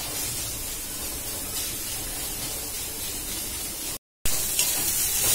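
Chopped onions sizzling steadily as they fry in a kadhai. The sound drops out for a moment about four seconds in, then comes back louder.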